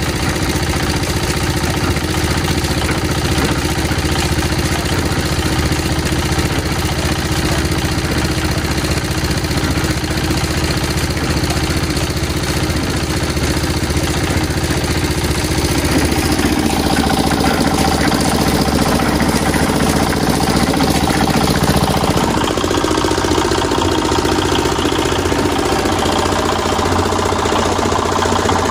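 An engine running steadily, its note shifting about halfway through and again a few seconds later.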